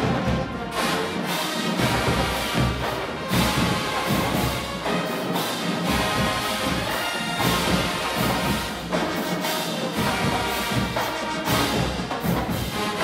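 Marching band playing live, full brass over steady drum strokes.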